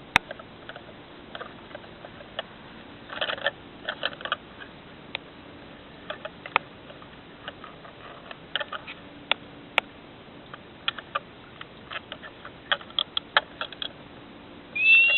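Scattered small plastic clicks and taps, with a faint steady hum underneath. Near the end the toy Jeep's electronic sound effect starts with two short, high tones that rise in pitch.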